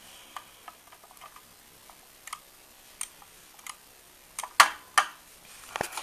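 Scattered sharp plastic clicks and taps from a lift call button being pressed and handled, with two louder clicks about four and a half and five seconds in.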